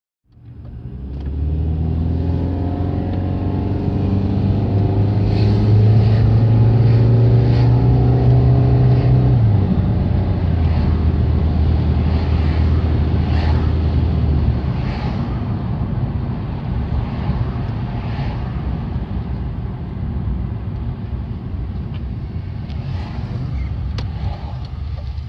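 BMW E46 316i's 1.9-litre four-cylinder engine heard from inside the cabin, pulling away and accelerating: the engine note rises for several seconds, then drops about nine seconds in and again near fifteen as the automatic gearbox shifts up, and settles into steady cruising.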